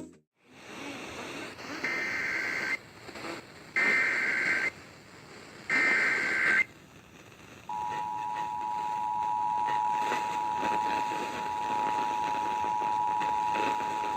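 Emergency Alert System tones received over the radio: three roughly one-second bursts of the SAME digital data header, with radio hiss between them. A second or so later the steady two-tone EAS attention signal starts and holds, announcing the next alert, a flash flood warning.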